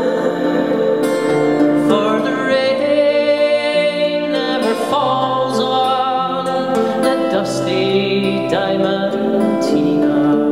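A man singing to an acoustic guitar.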